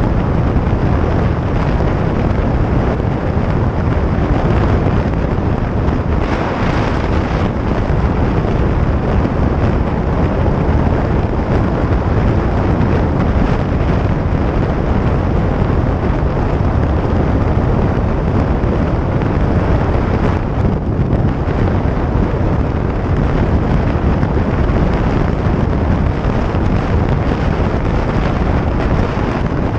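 Harley-Davidson Iron 883's air-cooled V-twin running steadily at highway speed, mixed with heavy wind noise on the microphone.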